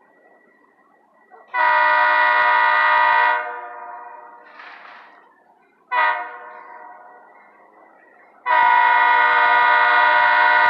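GE B23-7 diesel locomotive's air horn sounding a long blast of about two seconds, a short toot, then another long blast, with an echo fading after each. Long–short–long is the close of the standard grade-crossing signal.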